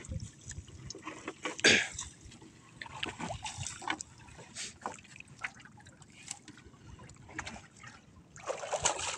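Collapsible wire-and-net crab traps being handled and stacked in a small boat: scattered clicks and rattles of the wire frames and netting, with a louder clatter about two seconds in. Water splashing starts near the end.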